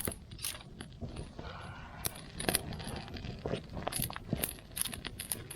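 Irregular light clicks, clinks and knocks of camping gear being handled and rummaged through, as in a search for a misplaced ferro rod.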